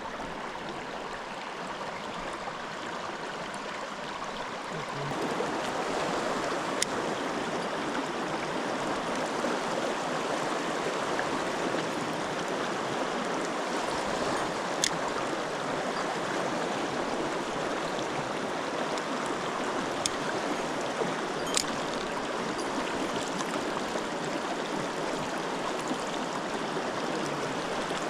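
Mountain stream rushing steadily over rocks, growing louder about five seconds in, with a few short sharp clicks.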